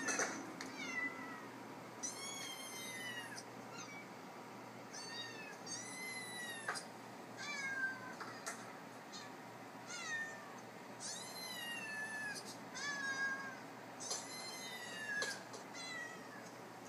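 Recorded cats and kittens meowing, played from a video through an iPad's speaker: about a dozen short, high meows that rise and fall in pitch, one every second or so.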